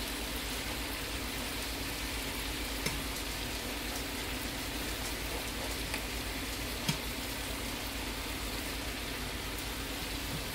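Chicken and vegetables sizzling steadily in a cast iron skillet on the stove, with two light clicks partway through.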